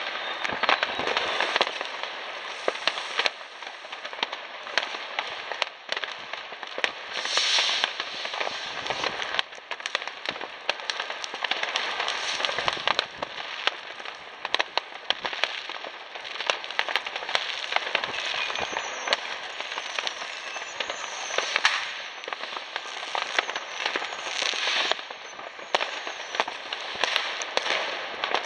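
New Year's fireworks, firecrackers and rockets, going off all at once: continuous crackling packed with many sharp bangs, and a few short whistles about two-thirds of the way through.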